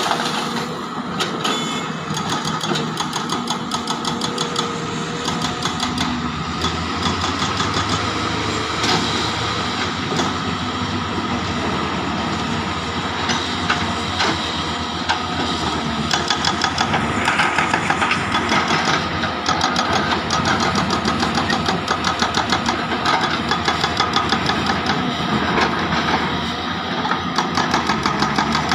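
Diesel engine of a Zoomlion ZE370E crawler excavator running steadily as the machine loads rock. From about a third of the way in there is a fast, even ticking pulse of several beats a second.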